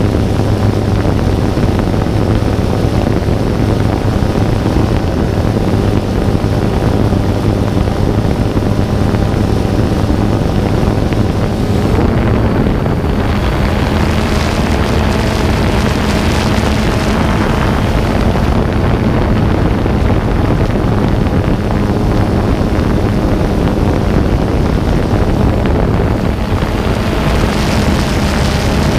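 Drone's electric motors and propellers humming steadily in flight, with wind rushing over the on-board microphone; the hum shifts slightly in tone about halfway through.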